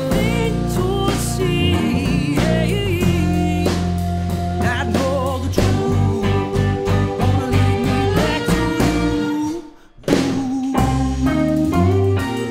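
Live band playing a song: a man singing with a wavering, vibrato-like line over strummed acoustic guitar, electric guitar and drums, the cymbals played with bundled rods. Just before ten seconds in the band stops dead for a moment, then comes straight back in.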